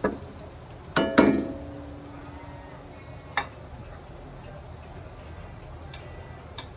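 Metal spatula striking and scraping a metal wok while stirring minced garlic, ringing clinks at the start and about a second in. Then the garlic fries gently in the oil, with a few light clicks of the spatula.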